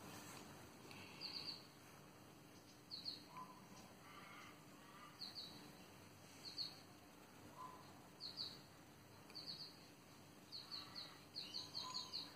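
Faint birdsong: short clusters of two to four high chirps, repeating every second or two.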